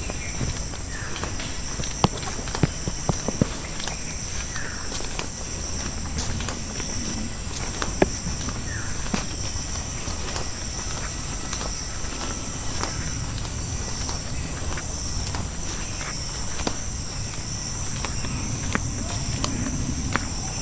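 Steady high-pitched chorus of insects, crickets or cicadas, with a walker's footsteps ticking irregularly, the sharpest steps about two and eight seconds in.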